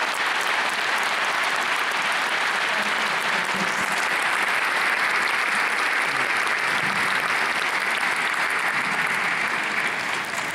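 Concert audience applauding: a steady, dense patter of many hands clapping that dies away near the end.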